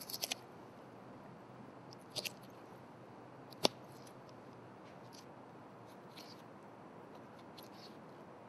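Boning knife cutting and scraping along the spine of a venison saddle on a wooden board: faint, with a few short clicks and scrapes, the sharpest a little over three and a half seconds in.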